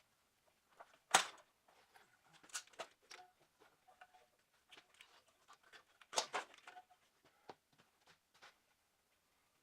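Scattered clicks and knocks of hand tools and parts during transmission work, with two louder clanks, one about a second in and one about six seconds in.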